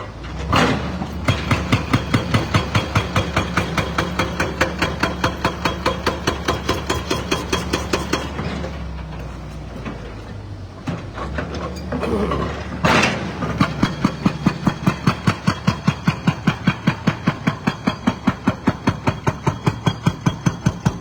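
Excavator-mounted hydraulic breaker hammering concrete at about three to four blows a second, over the excavator's diesel engine running. The hammering stops for about four seconds near the middle, leaving the engine, then starts again.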